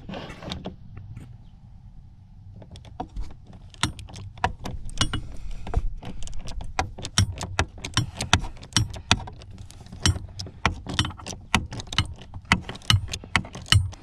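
Hand ratchet with a socket extension clicking in quick, uneven runs as it backs off the nuts holding a car's gas pedal assembly. The clicking starts about two and a half seconds in.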